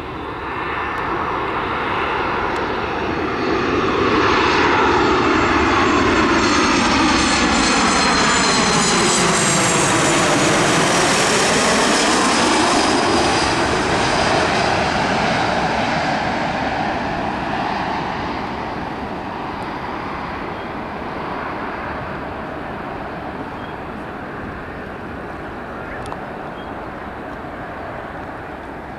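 Boeing 737 airliner's jet engines on final approach, passing close by. The engine noise swells, its whine drops in pitch as the jet goes past about ten seconds in, then slowly fades as it flies away toward the runway.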